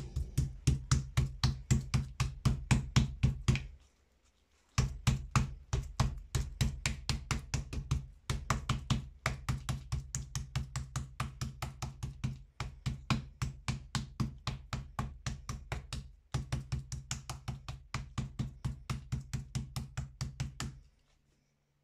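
Wooden meat mallet pounding a chicken breast flat on a plastic cutting board: rapid, even knocks about four a second, in runs of a few seconds with short breaks, stopping near the end.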